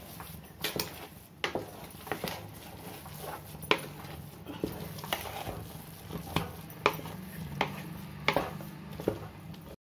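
A spatula stirring and scraping thick chana dal and coconut halwa in a metal pot, knocking against the pot's sides about once a second, irregularly. A low steady hum runs underneath.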